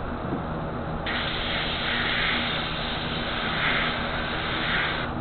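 Gravity-feed airbrush spraying paint: a steady hiss of air that starts about a second in and cuts off just before the end.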